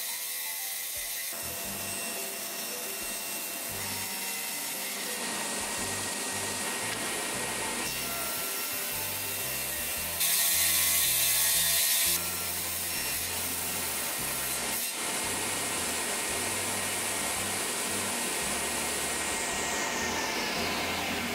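Table saw running steadily and ripping wooden strips. About ten seconds in there is one louder cut through a board, lasting some two seconds.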